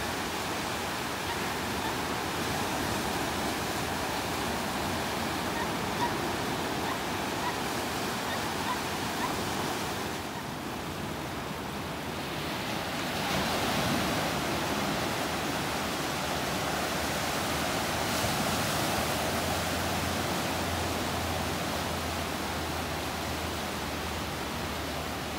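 Small ocean waves breaking and washing up a sandy beach: a steady hiss of surf that eases off about ten seconds in, then swells again as the next wave breaks.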